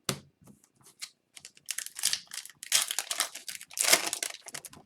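Crinkling and tearing of a foil Upper Deck Series 2 hockey card pack wrapper as it is opened, starting with a few sharp clicks, then a dense crackle that is loudest near the end.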